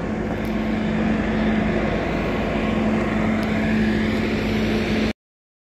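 A steady machine drone with a constant low hum, like an engine running nearby. It cuts off suddenly about five seconds in.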